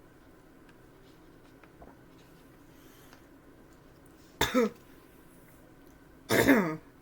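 A person burping twice, two short loud burps about two seconds apart, each dropping in pitch.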